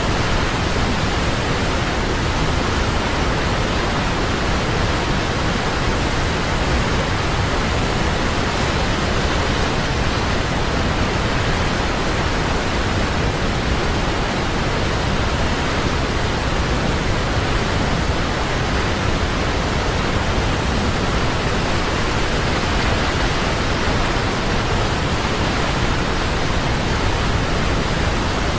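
Waterfall: a steady, unbroken rush of falling water, even throughout with no changes.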